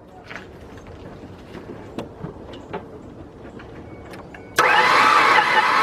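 A few light clicks, then about four and a half seconds in a Ford Ranger V6 engine is cranked over suddenly on the starter with the ignition disabled, for a compression test. It runs loud and steady without catching, a sound the mechanic takes as a sign of lost compression: a blown head gasket or cracked head on that bank.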